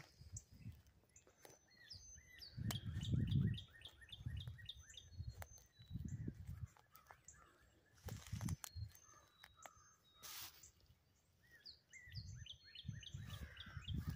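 Songbirds singing, one repeating a quick run of short chirping notes about two seconds in and again near the end, over intermittent low rumbles on the microphone, the loudest about three seconds in.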